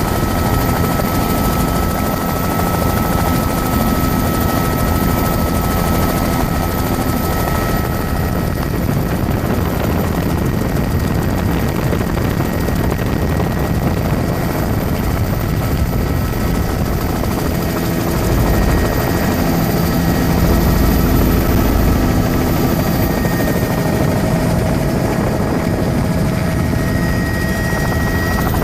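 Helicopter in flight, its rotor and engine making a loud, steady noise.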